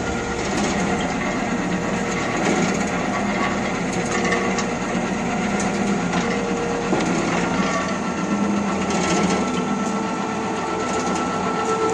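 Soap plodder running steadily under load: its motor and screw drive give a continuous mechanical whir as soap noodles are fed into the hopper and pressed out through the perforated plate.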